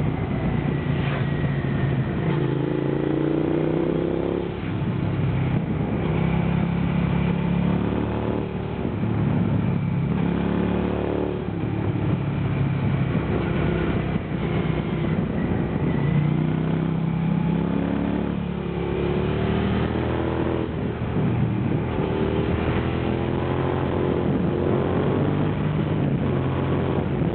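A Suzuki SV650's V-twin engine, heard from the bike itself, pulls out of corners and eases off again. Its note climbs in pitch and falls back several times as the throttle is worked through the bends.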